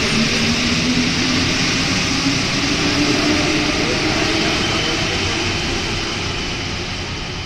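Interior noise of a rubber-tyred NS-93 metro train running through a tunnel: steady rumble and rush of the running gear, with a motor whine that rises in pitch over the first few seconds, the overall noise easing a little near the end.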